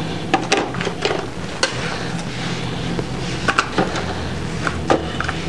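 Plastic food containers knocking and clicking against the sides and bottom of an aluminium cooking pot as they are set in, a handful of sharp knocks spread over a few seconds.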